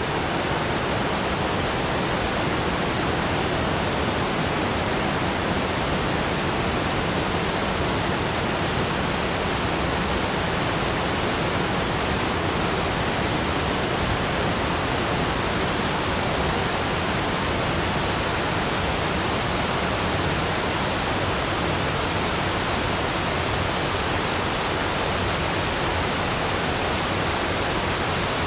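Waterfall: a steady, even rush of falling water with no change or separate events.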